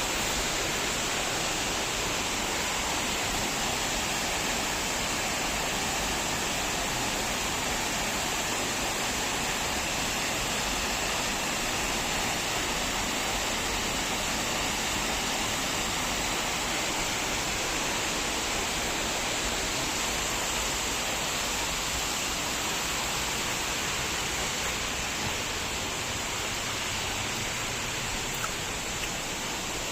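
Waterfall: a steady, even rush of falling water, unbroken throughout.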